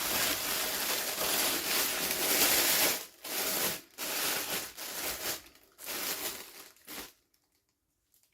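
Plastic toy packaging crinkling and tearing as it is unboxed, in several stretches broken by short pauses, then stopping abruptly about seven seconds in.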